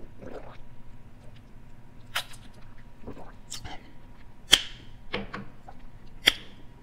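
A sip of iced tea through a straw, then a handful of sharp wet mouth clicks and lip smacks while tasting it, the loudest a little past the middle.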